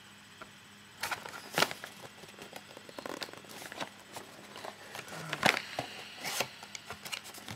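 Cardboard packaging and paper being handled and pulled apart: irregular rustling and scraping, broken by sharp knocks, the loudest about one and a half seconds and five and a half seconds in.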